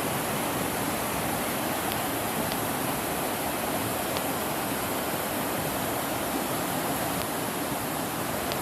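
Rushing river water tumbling over rocks: a steady, unbroken rush.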